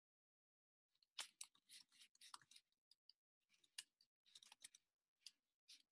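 Near silence, with faint scattered clicks and rustles.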